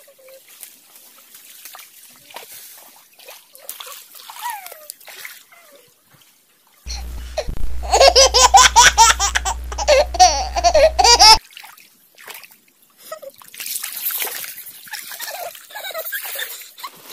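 Shallow stream water trickling over rocks. About seven seconds in, a loud burst of high-pitched laughing voices lasts about four seconds and cuts off suddenly, with a low hum under it.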